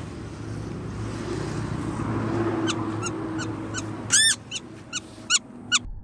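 Young woodpecker giving a quick series of short, harsh arching calls, about three a second, loudest around four seconds in, while held in the hand. Before the calls start, handling noise runs over a low steady hum.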